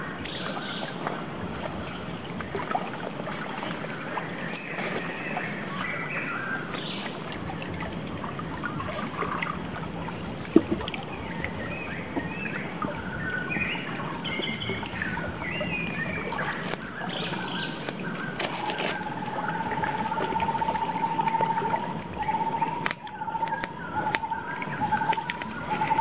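Shallow forest stream trickling steadily while birds call with scattered chirps. There is a single sharp click about ten seconds in. A steady pulsing trill starts about two-thirds of the way through and carries on.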